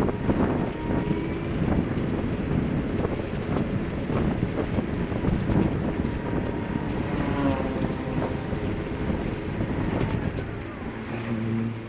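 Wind buffeting the microphone on a moving vehicle, mixed with the hiss of tyres on a rain-soaked road and rain spattering the camera in many small clicks. About a second before the end the rush eases as the vehicle slows, and a low steady hum comes through.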